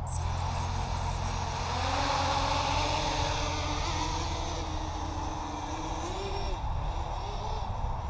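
FPV racing quadcopter's motors and propellers whirring, starting suddenly, the pitch slowly rising and falling with the throttle, over a steady low rumble.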